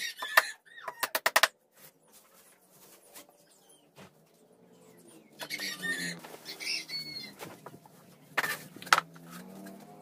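A quick run of sharp knocks on wood in the first second and a half, then fowl clucking and small birds chirping, and two louder knocks near the end.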